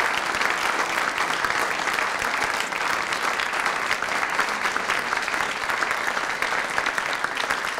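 An audience applauding: many people clapping in a steady round of applause.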